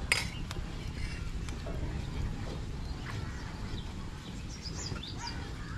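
Wooden paddle stirring thin coconut-milk and rice-flour batter in a large aluminium pot, over a steady low rumble. A sharp knock comes just after the start, and a few faint bird chirps near the end.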